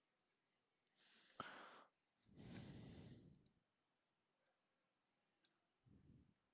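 Faint breathing close to the microphone between remarks: a short breath about a second in, a longer breath from about two to three and a half seconds, and a low puff near the end, with one sharp click about a second and a half in.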